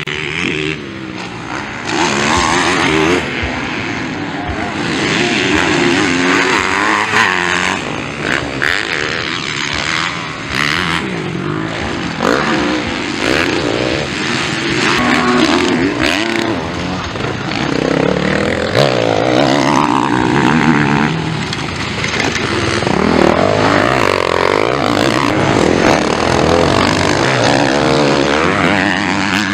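Motocross bikes racing on a dirt track, their engines revving up and falling back over and over as riders accelerate and ease off.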